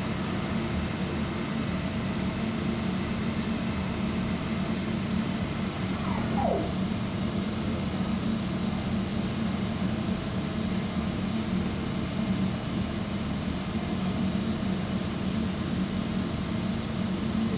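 CNC milling machine running with a steady low hum after the thread-milling cut has ended, the tool withdrawn from the work. About six seconds in, a brief falling whine.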